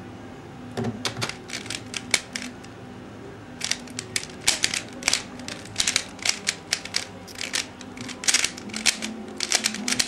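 Dayan Guhong 3x3 speedcube being turned fast during a timed solve: rapid plastic clicks of the layers snapping round. The clicks start about a second in, pause briefly near three seconds, then resume in quick runs.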